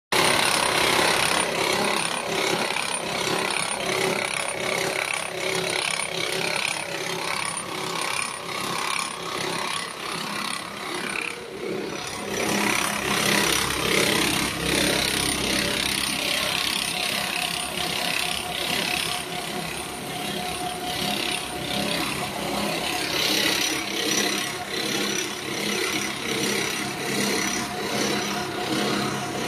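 Core-filled pet food extrusion line running: the extruder and the roller cutter that crimps the filled ropes into pillows make a steady machine noise with a rhythmic rasping pulse.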